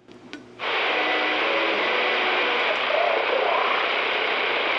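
CB radio static: a steady rushing hiss that switches on abruptly about half a second in, after a brief near-quiet gap, and holds at an even level.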